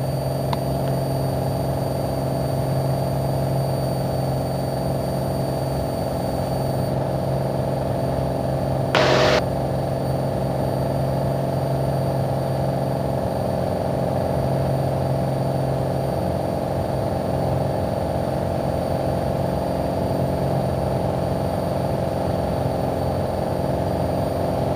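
Piper Warrior's four-cylinder piston engine running steadily at full takeoff power in the cockpit through the takeoff roll and climb-out. A brief burst of noise about nine seconds in is the loudest moment.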